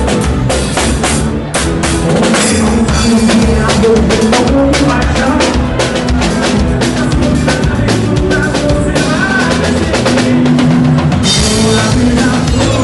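Live sertanejo band playing an instrumental passage: a drum kit with kick, snare and cymbals drives the beat under bass and guitars.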